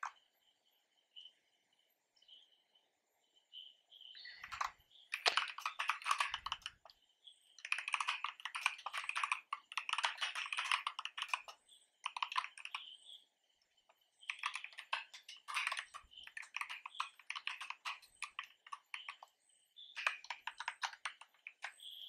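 Typing on a computer keyboard: rapid key clicks in five bursts of one to five seconds each, separated by short pauses.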